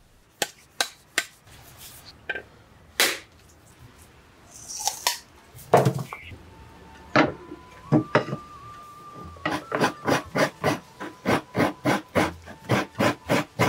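Halved coconut being scraped on a hand coconut scraper: a few scattered knocks, then from about ten seconds in a regular run of scraping strokes, about three a second.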